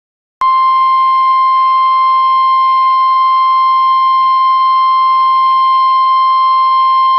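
NOAA Weather Radio's 1050 Hz warning alarm tone: a single loud, steady tone that starts about half a second in and holds without change. It signals that a new warning broadcast is about to begin.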